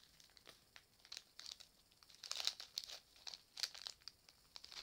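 A sweet wrapper crinkling and crackling as it is twisted and pulled between the fingers, in irregular bursts with louder clusters around the middle. The wrapper is hard to open and does not tear open.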